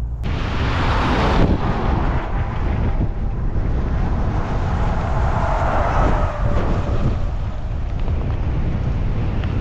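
Strong gale wind buffeting the microphone, with a heavy low rumble of road traffic that swells twice, as a vehicle passes.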